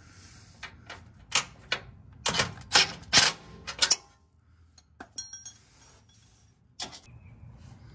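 A string of sharp, irregular metal clicks and clinks from bolts, washers and a socket being handled and fitted while fastening a steel skid plate, busiest in the first four seconds, then a few lighter ticks.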